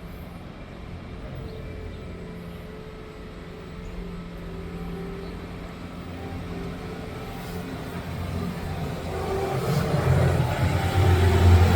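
Bobcat skid steer's diesel engine running steadily as the loaded machine travels downhill with a full bucket of broken concrete, growing louder near the end as it comes closer.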